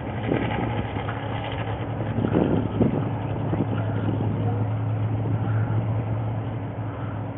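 Dirt-track race car engine running steadily as it laps the track.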